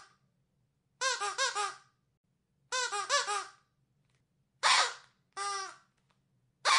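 Squeaky dog toy squeezed over and over. Two quick runs of squeaks, each squeak rising and falling in pitch, are followed by two longer single squeaks that fall in pitch, and another starts right at the end.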